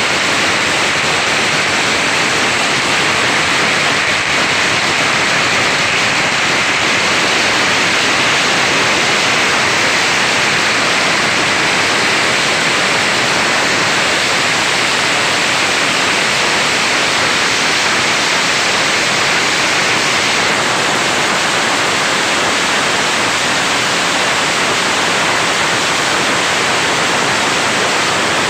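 A long string of firecrackers going off in a rapid, unbroken crackle, the bangs so close together that they run into one dense, loud rush of noise at an even level.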